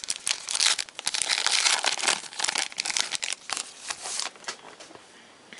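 Crinkling and tearing of a trading-card pack wrapper as a new pack of baseball cards is torn open, a dense run of crackles that dies down near the end.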